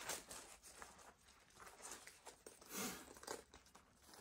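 Faint rustling and handling of packaging as a pair of slide sandals is lifted out of its box, with a slightly louder rustle a little before three seconds in.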